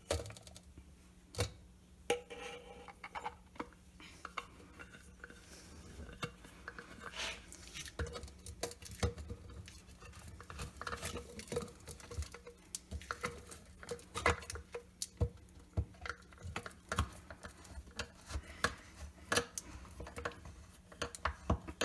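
Hand screwdriver driving a sheetrock screw through a plastic jar into a block of wood: many irregular clicks, taps and scrapes of plastic, metal and wood being handled.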